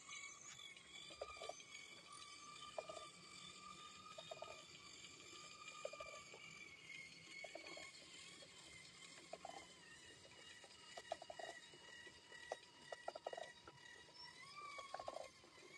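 Geomembrane welding machine running quietly with a steady whine that shifts in pitch slightly near the end, with short faint chirps repeating about every second and a half.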